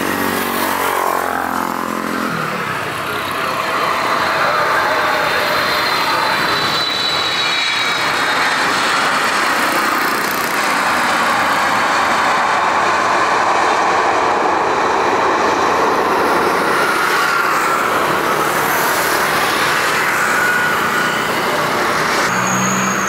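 Emirates Boeing 777-300ER's GE90 jet engines, a steady loud roar as the airliner passes low on final approach, touches down and rolls out along the runway. In the first two seconds there is a falling tone as it goes by.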